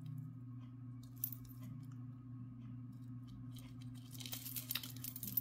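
Handling of a haul of craft-store jewellery supplies: faint crinkling of packaging and light clicking of metal charms and chain, busier from about four seconds in, over a steady low hum.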